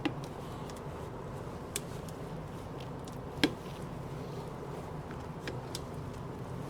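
Scattered sharp clicks and taps of a plastic pour spout being pressed and worked onto the rim of a metal primer can, the loudest about three and a half seconds in, over a steady background hum.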